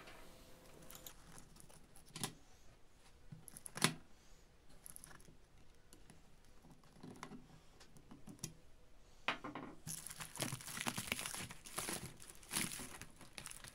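Flexible aluminium foil ducting crinkling as it is squeezed and handled, in a busy stretch starting a little after halfway. Before that come a few sharp light clicks, the loudest about four seconds in.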